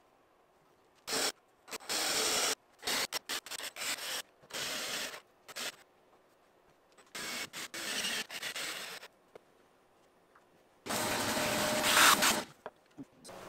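Short bursts of wood rubbing and scraping on a pine benchtop as a wooden drill-guide block is slid and handled among loose wood shavings. Near the end, a vacuum hose sucks up the shavings for about a second and a half; this is the loudest sound.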